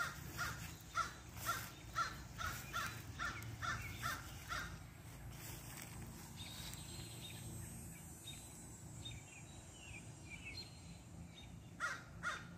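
A crow cawing in a quick series, about two caws a second; the caws stop about halfway through and start again near the end.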